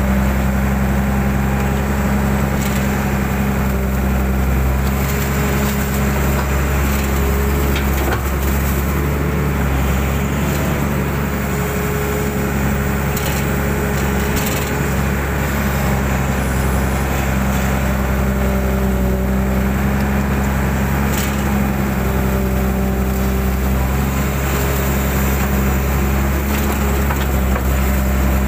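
Mitsubishi 120 hydraulic excavator's diesel engine running steadily under load while it clears a ditch. Its hydraulics whine and shift in pitch now and then, and a few sharp cracks and knocks come from the digging.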